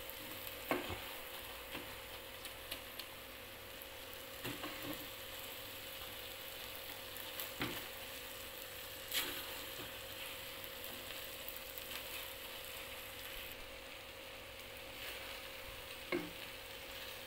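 Noodles, cabbage, meatballs and sausage sizzling in a non-stick wok as they are stir-fried and turned with a spatula, with a few sharp knocks of the spatula against the pan.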